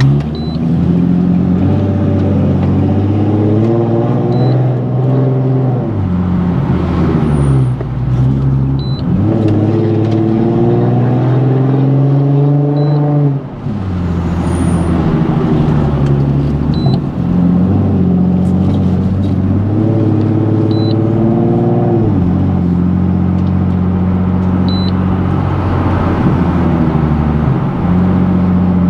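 Nissan 370Z's 3.7-litre VQ37 V6 with a Tomei full exhaust, pulling hard several times with the pitch climbing, then dropping back sharply after each pull, with steadier running in between.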